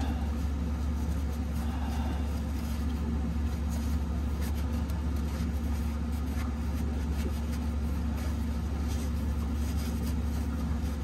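Steady low mechanical hum holding one pitch, with a few faint clicks from hand work.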